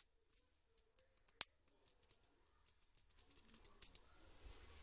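Sharp plastic clicks and taps from a laptop keyboard with its keycaps off being handled. The loudest click comes about one and a half seconds in, with a quick run of clicks around three to four seconds. A soft scraping follows near the end as the keyboard is moved.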